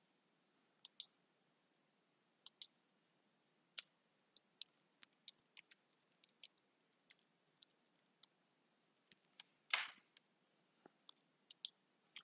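Faint, irregular clicks of computer keys and a mouse while a short name is typed into a text field, with one slightly louder, soft noise lasting a moment about ten seconds in.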